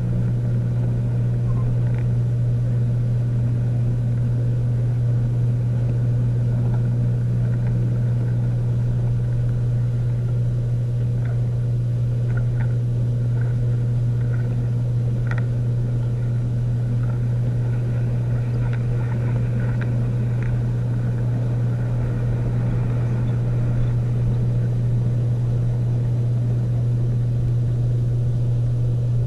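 HO scale model train running on its track: a steady low hum and rumble at one even pitch, with a few faint clicks in the middle.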